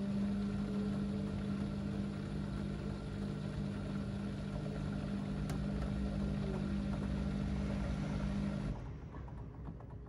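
LG DirectDrive front-loading washing machine turning a heavy wet carpet in its drum: a steady hum over a rushing, churning noise. About nine seconds in, the sound abruptly drops to a quieter, duller rumble.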